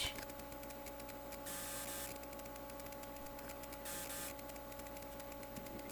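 Steady electrical hum of electronic test equipment, made of several pitches, with two short bursts of hiss about a second and a half and four seconds in.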